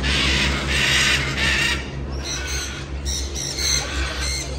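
Large parrots squawking: three loud, harsh calls in quick succession in the first two seconds, followed by higher, shorter chirps. A steady low hum runs underneath.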